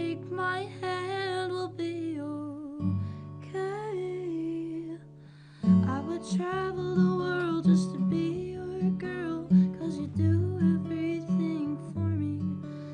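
Live acoustic song: acoustic guitar strumming under a woman's singing voice, with a brief near-pause about five seconds in before the guitar and voice come back in.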